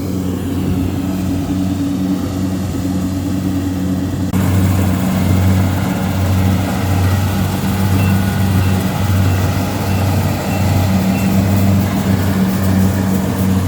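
Diesel engine of a Kubota DC70 combine harvester running steadily with a low pulsing hum. About four seconds in the sound changes abruptly, with more hiss over the engine.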